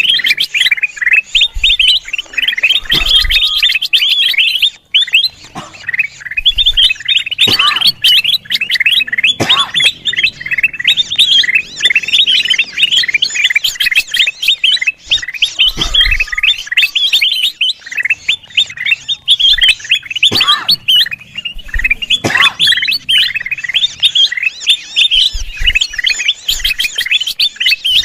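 Kutilang emas bulbuls chirping busily, a dense unbroken stream of rapid high chirps, with an occasional lower call that slides downward.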